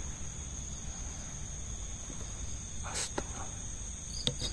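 Crickets chirping at night in a steady, high-pitched trill over a low rumble, with a short burst of noise about three seconds in and two sharp clicks near the end.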